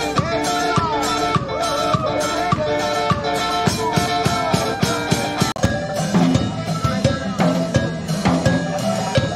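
Upbeat music with a steady drum beat and melody lines. About five and a half seconds in it breaks off for an instant, and a deeper bass part comes in.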